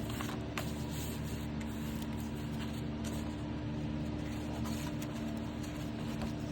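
A steady low hum with a few faint taps and clicks, typical of paper being handled on a craft table.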